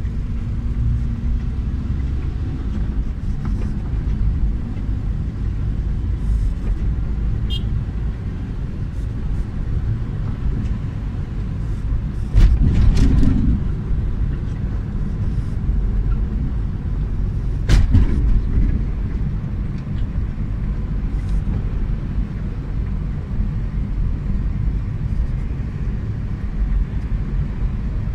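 Steady low road rumble of a moving car, heard from inside as it drives in traffic. It swells briefly about twelve and a half seconds in, with a sharp knock at about eighteen seconds.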